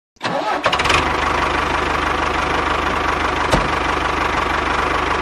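Tractor engine running steadily with an even, fast low throb, starting abruptly just after the start. A single click about three and a half seconds in.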